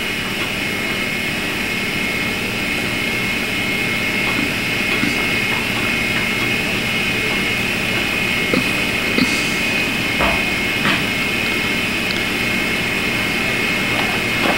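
Steady background hiss with a high, even whine, broken by a few faint clicks around the middle.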